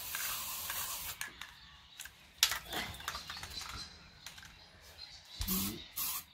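Aerosol can of metal primer spraying with a hiss that stops about a second in, followed by a few short spurts and sharp clicks, the loudest about two and a half seconds in; the spraying hiss starts again near the end.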